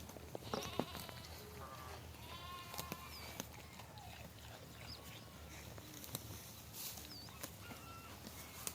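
Goats bleating: a few short bleats in the first three seconds, one of them quavering for about half a second, then fainter calls later on.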